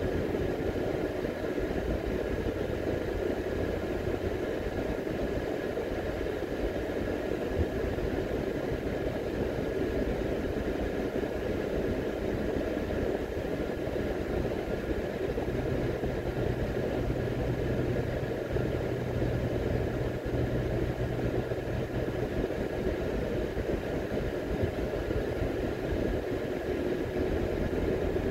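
Car driving along a highway: steady tyre and engine noise heard inside the cabin. A low hum joins for several seconds about halfway through.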